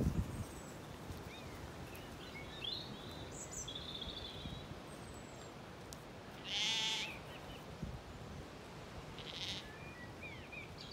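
Zwartbles lamb bleating once, loud and high, about two-thirds of the way in, with a second, fainter bleat near the end. Small birds chirp in the first half.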